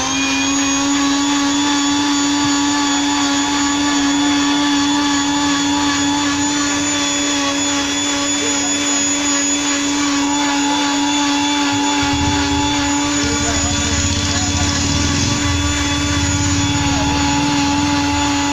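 Electric blender with a glass jar, its motor running at a steady high speed as it blends a chocolate shake, one even hum with overtones. A rougher low rumble joins it for about four seconds past the middle.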